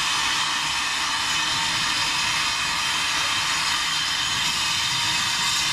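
Steam locomotive releasing steam: a loud, steady hiss that holds without change.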